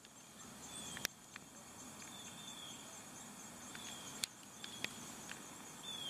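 Faint outdoor ambience: a short, slightly falling high chirp repeats about every second or so, with a few sharp clicks.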